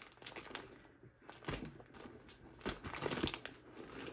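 Plastic shrink wrap on two foam pillows crinkling and rustling as the pillows are handled and lifted out of their box, in irregular bursts, loudest about three seconds in.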